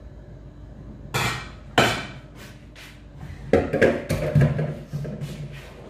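Kitchenware knocking and clattering on a counter: two sharp knocks a little over a second in, about half a second apart, then a quick run of clattering knocks with a short ring from about three and a half seconds in.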